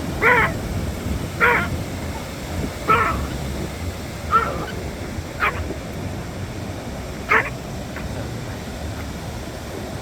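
A dog barking in short, sharp yips, about six barks spaced a second or two apart, over a steady low rumble.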